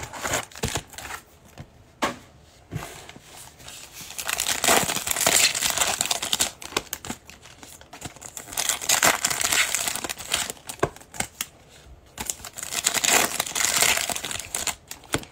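A cardboard Panini Prizm football blaster box pulled open, then its foil card packs handled, crinkling and tearing open in several bursts with short quieter gaps between.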